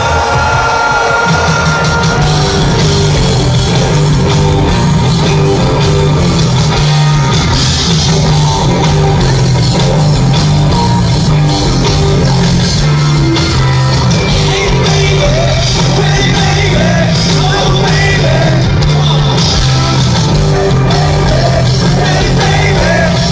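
Live rock band playing a repeating bass and electric guitar riff over drums, heard loud from within the audience, with a male voice singing over it in the second half.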